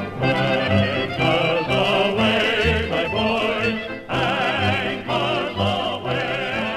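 Soundtrack music: orchestral accompaniment with a steady bass line under operatic-style singing with strong vibrato.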